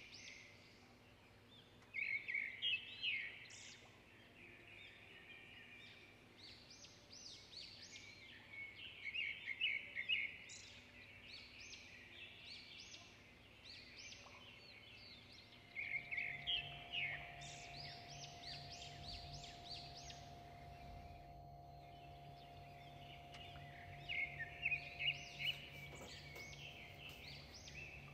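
Small birds chirping in scattered bursts of quick, high notes, with quieter gaps between the bursts. A faint steady hum comes in about halfway through.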